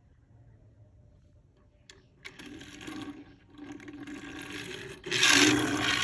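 Three rubbing, scraping noises, each about a second long with short breaks between them; the last is the loudest.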